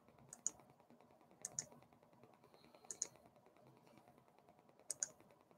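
Four pairs of sharp clicks from someone working a computer, spaced a second or two apart, over faint room hiss.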